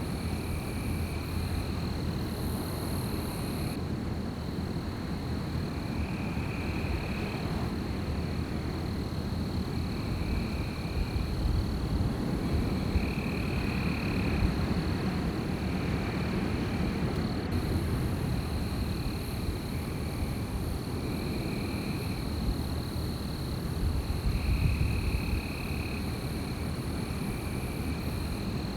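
Wind blowing with a low, steady rumble, under a continuous high-pitched insect drone and short trills repeating every second or two from night-calling animals.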